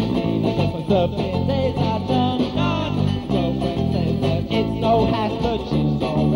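Pop band music: strummed guitars over a bass guitar line, with a melody line above.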